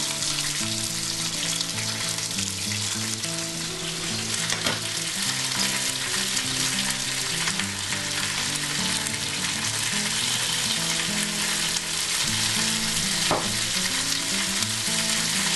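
Skin-on chicken breasts sautéing in a frying pan, a steady sizzle throughout.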